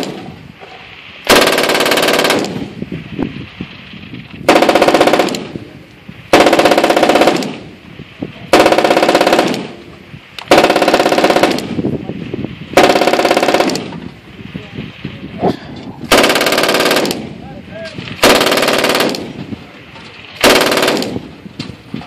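Machine gun firing short bursts: about nine bursts of rapid shots, each roughly a second long, coming about every two seconds.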